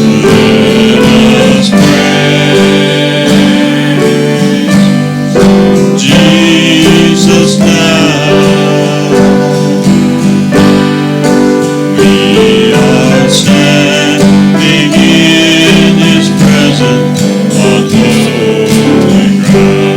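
Music with strummed acoustic guitar, playing steadily.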